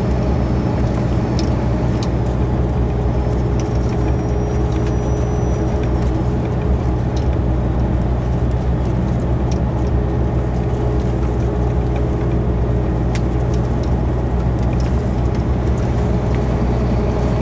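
Articulated lorry driving at steady speed, heard from inside the cab: a constant low engine drone with road and tyre noise and a few faint cab clicks.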